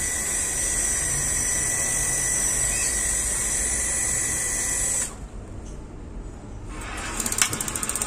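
Gas water heater running with a steady rush from its burner and water flow, which cuts out about five seconds in. About two seconds later its electric spark igniter starts clicking rapidly and evenly to relight the burner.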